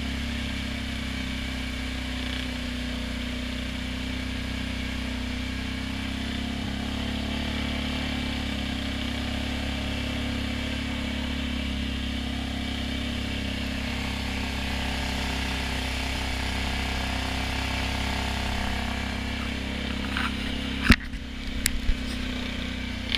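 ATV engine running steadily under load as the quad churns through shallow muddy water. Near the end come a sharp knock and a few louder, uneven bumps.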